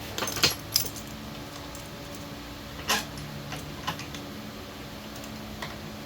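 Metal tools and parts clinking as they are handled on a workbench: a quick cluster of clinks in the first second, a sharper one about three seconds in, then lighter ticks. A steady low hum sits underneath.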